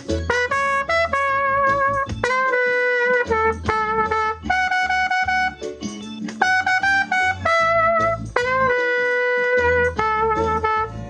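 Trumpet playing a melodic solo of held and short notes over a reggae backing track with a pulsing bass line.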